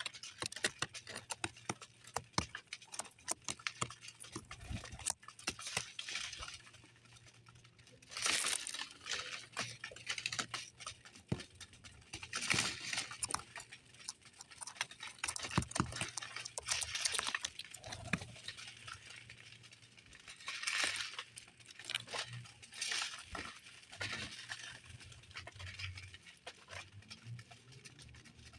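Small birds moving about an aviary: irregular light taps and scratches throughout, with several louder rustling bursts lasting about a second each.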